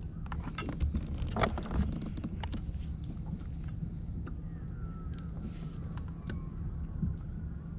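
Steady wind rumble on the microphone, with scattered knocks and clicks of hands handling gear on a kayak, busiest in the first couple of seconds.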